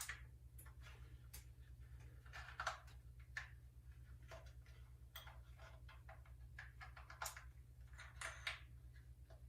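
Scattered light clicks and taps from camera kit parts being handled and fitted together, over a faint steady low hum.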